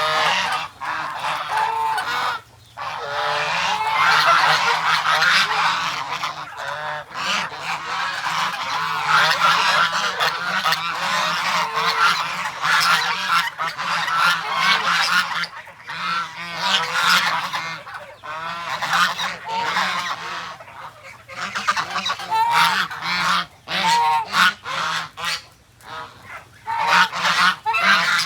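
A flock of domestic geese honking, many calls overlapping almost without pause, with a few brief lulls.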